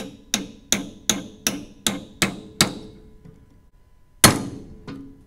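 A hammer taps the steel pin of a New Holland 326 baler's bill hook into the knotter to seat it. A quick run of about eight light taps, roughly three a second, each rings briefly. After a pause comes one hard blow about four seconds in, then a faint tap.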